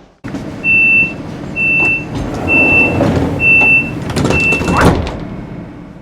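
Door-closing warning beeps of a DB class 425 electric multiple unit: five steady high-pitched beeps about one a second over the train's rumble, followed by a loud thump near the end.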